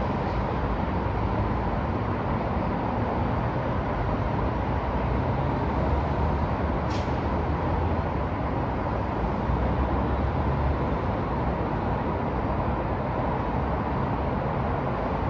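Downtown city street traffic: a steady wash of vehicle noise with a low engine rumble, and a brief high squeak about seven seconds in.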